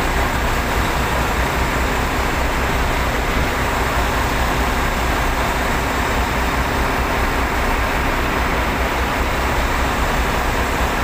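Steady, loud low drone with a rushing noise over it from a ferry's engines, heard on the enclosed vehicle deck.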